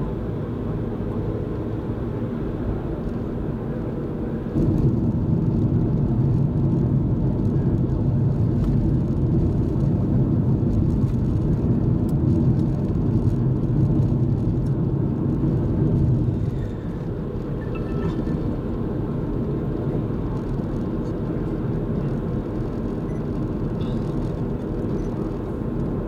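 Car road and engine noise heard from inside the cabin while driving: a steady low hum that grows louder for about twelve seconds, starting about five seconds in, then settles back.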